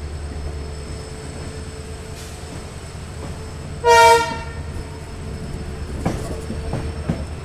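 WDP4 diesel locomotive's horn sounding one short blast about four seconds in, over the steady low rumble of the running train.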